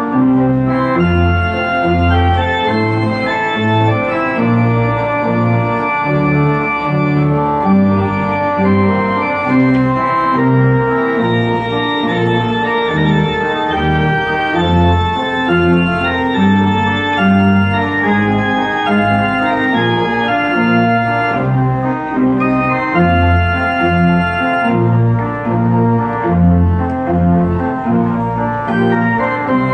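Pipe organ playing a lively, festive tune on full chords over a bass line that moves note by note, about one to two notes a second.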